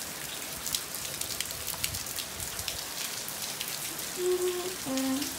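Hurricane rain falling hard on a paved patio: a steady hiss full of sharp dripping ticks. Near the end come two brief low vocal sounds, the loudest moment.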